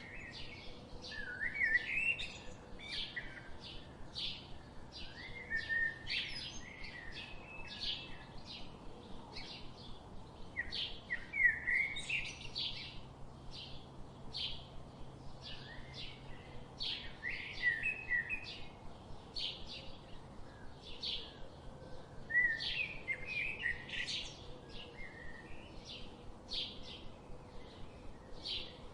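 Songbirds chirping: a steady series of short, high chirps, about two a second, with lower warbling phrases breaking in every few seconds.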